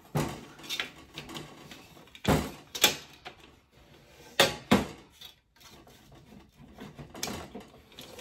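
Knocks and clatter of an umbrella stand being handled and set up: three pairs of sharp knocks in the first five seconds, then fainter handling noise.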